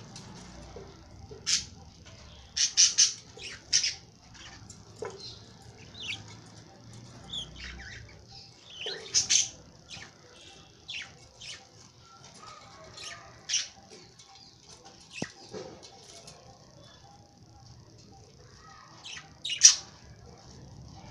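Lovebirds giving short, high-pitched squawks and chirps at irregular intervals. There is a quick run of several calls about three seconds in, and the loudest call comes near the end.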